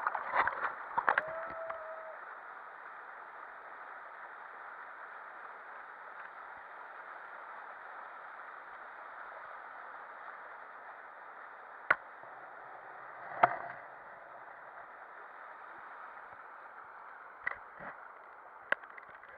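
Water splashing for the first couple of seconds, then the steady rush of water streaming down a plastic water slide, broken by a few sharp knocks later on.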